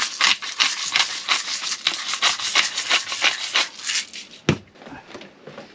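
Hand-twisted salt grinder being turned over kebab skewers, a fast run of gritty crunching clicks for about four seconds. A single knock follows about four and a half seconds in.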